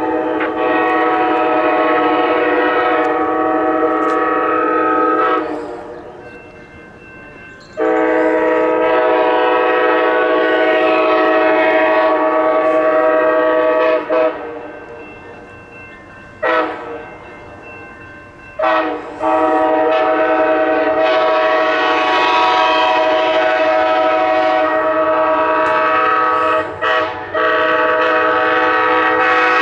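Multi-chime air horn of an Amtrak Siemens ALC-42 Charger locomotive sounding a drawn-out horn show: a steady, loud chord held in long blasts of several seconds each. The long blasts are broken by short gaps, with two quick short blasts in the middle and two brief breaks near the end.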